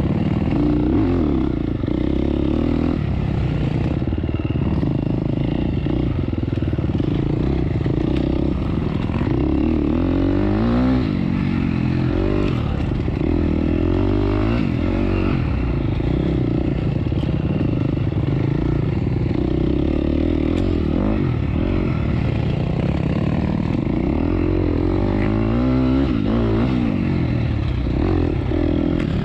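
Off-road dirt bike engine running continuously while the bike is ridden along the trail, its pitch rising and falling again and again as the throttle is opened and closed.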